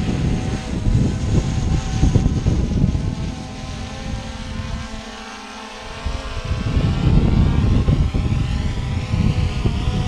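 Hubsan X4 quadcopter's small electric motors and propellers whirring as it hovers and flies low, with gusts of wind rumbling on the microphone.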